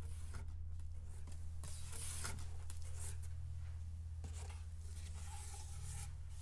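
Rustling and scraping of a cardboard box being handled, in two bouts, over a steady low hum.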